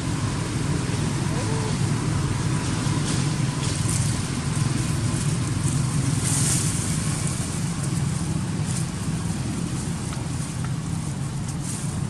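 A steady low background rumble with a few short crackles. The crackles fit an empty plastic water bottle being bitten and handled by a macaque.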